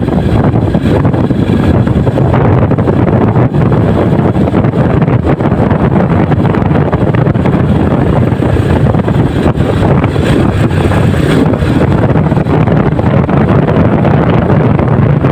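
Steady wind rumble over the microphone of a motorcycle riding at speed, with the bike's engine and road noise running underneath.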